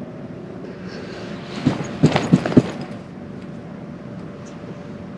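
Tent fabric struck from inside by hand a few times in quick succession, a short run of dull pops about two seconds in.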